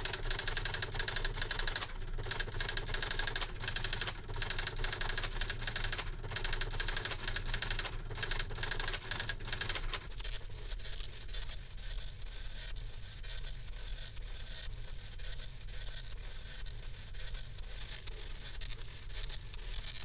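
Smith Corona Ultrasonic 350 electronic daisy-wheel typewriter printing text from a computer: a fast, continuous stream of print-hammer clicks with the carriage and paper feed moving between lines, over a steady low hum. The clicking grows softer about halfway through.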